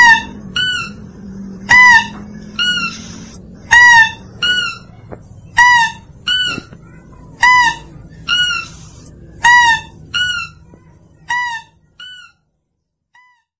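Mouse-deer (kancil) lure call: short, nasal squealing notes in pairs, a loud one followed by a softer one, repeated about every two seconds. The calls stop shortly before the end, with one last faint note.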